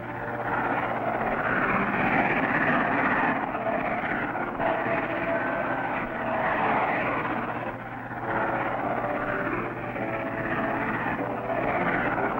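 Norfolk and Western steam locomotive and train running past: a steady noisy rush that swells and eases every few seconds, with a few brief thin tones over it.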